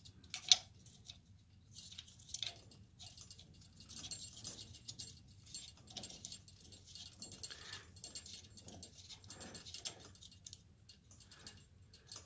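A small metal socket plate being screwed down by hand onto the threaded pipe inside a chandelier arm's metal candle cup, with blue threadlocker on the threads. It makes light, irregular clicks and scrapes of metal on metal, with one sharper click about half a second in.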